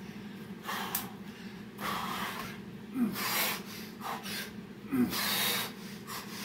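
A man breathing hard while doing burpees: a forceful huffing breath roughly every second, two of them with a short rising vocal edge. A steady low hum runs underneath.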